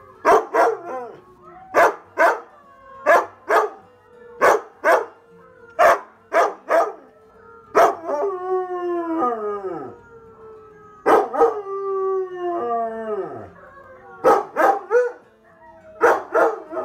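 Siberian huskies barking in short, sharp barks again and again, with two long howls around the middle that slide down in pitch; a husky howling along to huskies on a TV.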